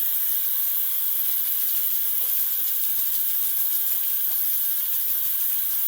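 Tap water running steadily into a sink, turned on suddenly at the start, a loud even hiss of water.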